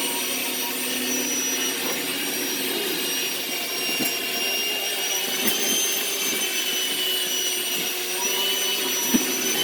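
Electric hand mixer running steadily, beating cake batter in a bowl, a continuous motor whine with slight shifts in pitch as it is moved around. A brief knock near the end, like the beaters hitting the bowl.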